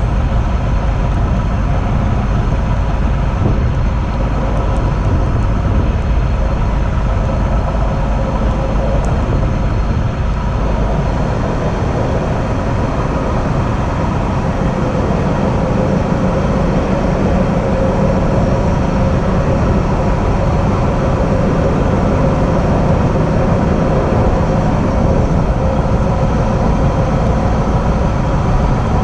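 Train running along the track: a steady rumble of wheels on rails with a faint steady whine. Partway through, it passes through a short tunnel.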